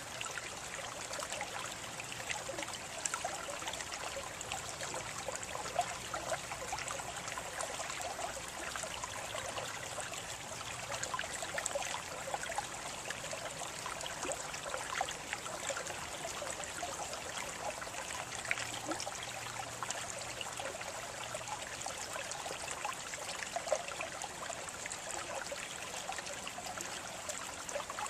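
Small stream of water trickling and splashing steadily over stones, with many small bubbling splashes.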